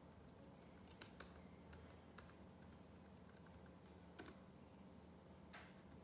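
Key presses on an Acer Aspire 3 laptop keyboard: about five separate, sparse clicks over a faint steady hum.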